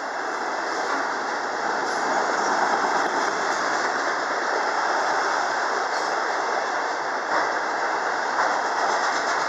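Autorack freight cars rolling past: a steady rush of steel wheels on rail, with a few faint clacks.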